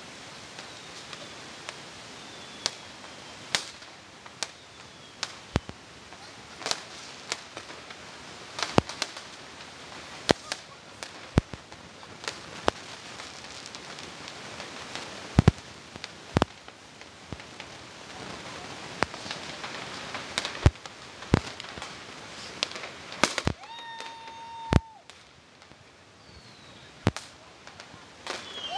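New Year's fireworks and firecrackers going off all around: many sharp bangs at irregular intervals, some loud and close, over a steady crackle of more distant bursts. A brief steady whistle sounds near the end.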